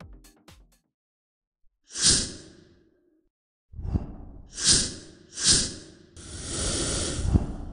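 Whooshing sound effects for a hero's transformation: one whoosh about two seconds in, two sharp whooshes around four and a half and five and a half seconds, then a longer steady hiss near the end.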